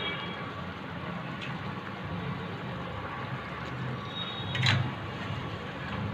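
Steady low rumble of prawn masala curry simmering in a pan on an induction cooktop, with one short clink about four and a half seconds in.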